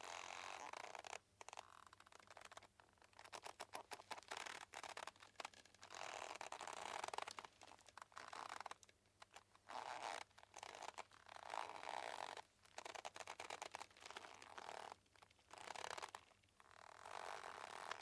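Boat mooring rope creaking as it draws tight and slackens, a run of rapid fine creaks about every one to two seconds with short pauses between.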